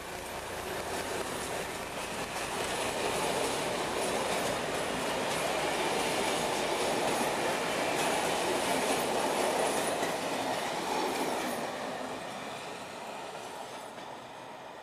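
Passenger coaches rolling past on the rails, wheels clicking over the rail joints with a faint high squeal. The rumble swells as they pass and fades away near the end.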